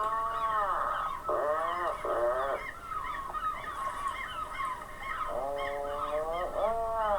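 A seabird colony calling: loud, drawn-out, arched calls in a group near the start and again near the end, over steady chatter of many shorter, higher calls.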